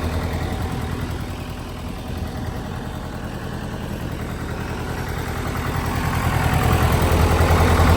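Cummins 4-390 (4BT 3.9) four-cylinder diesel of a Case 580 Super K backhoe idling steadily, growing louder in the second half. It runs clean with no knocking or ticking.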